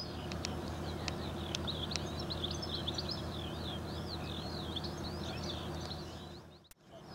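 Many small birds twittering and chirping in quick, overlapping calls over a low, steady background hum.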